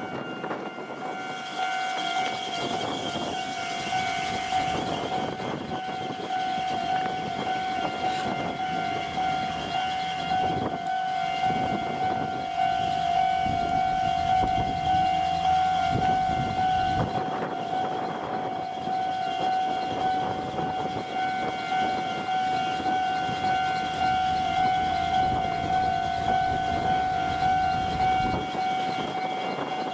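Japanese railway level-crossing electronic warning bells ringing in a steady repeating clang, the tone doubled and slightly out of step because a second speaker in the middle of the crossing sounds alongside the original. For roughly the first half a train runs through the crossing with a rumble and wheel clatter, after which the bells go on alone.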